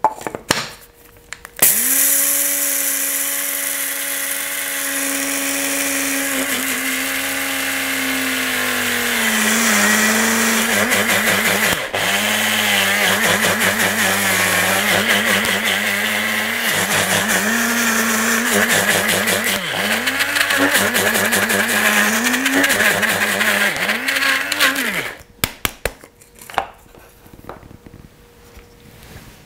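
Small electric blade coffee grinder running, grinding sesame seeds toward a paste for tahini. It starts about two seconds in, its motor pitch sags and dips again and again as the load shifts, and it cuts off about four seconds before the end, leaving a few light handling clicks.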